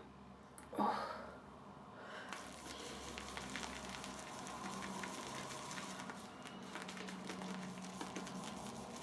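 Shaving brush whisking hybrid shaving-soap lather in a scuttle: a steady fizzing crackle of fine clicks that starts about two seconds in, after a brief knock just under a second in. Half a teaspoon of water has just been worked in, and the lather no longer sounds as sticky.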